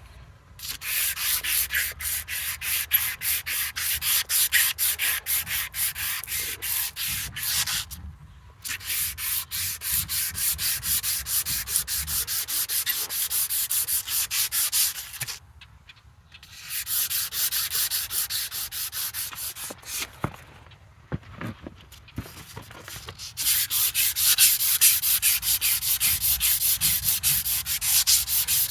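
Emery cloth rubbed rapidly back and forth on the sawmill's driveline shaft, cleaning up the metal so a tight-fitting part will slide on. The scraping comes in several bouts with short pauses between them.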